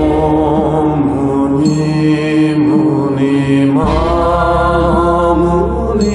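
Background music of a chanted, mantra-like vocal line, with long held notes that slide gently from one pitch to the next.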